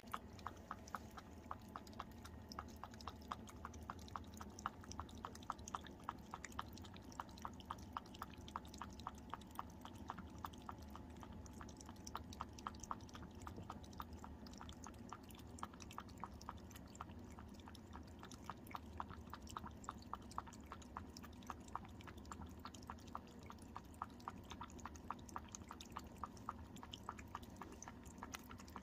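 A cat lapping water from a bowl with its tongue: a soft, steady run of small wet laps, about three or four a second.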